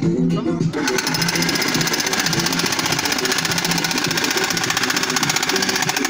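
Corded Makita electric demolition hammer starting up about a second in and hammering rapidly and evenly as its chisel breaks into packed dirt and concrete. Music with a steady beat plays underneath.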